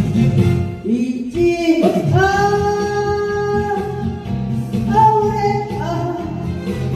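Song accompaniment with strummed guitar under a long-held lead melody, whose notes step up twice near the end.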